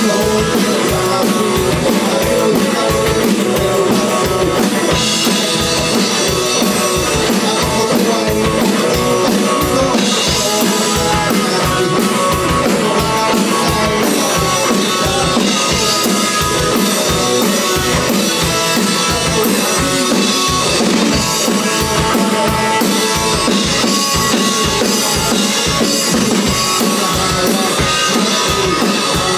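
Rock playing by an electric guitar through a 1967 Supro Thunderbolt amplifier with a full drum kit keeping a steady, even beat.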